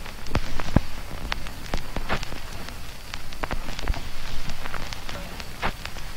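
Ambient soundscape from a Raspberry Pi ambient noise generator: a steady hiss with irregular sharp clicks and pops scattered through it, one or two a second.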